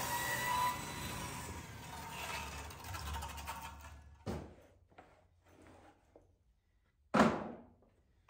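Table saw running with a plywood crosscut sled, its sound dying away over the first four seconds. Wooden pieces then knock against the sled: a few light knocks, then a sharp clack about seven seconds in.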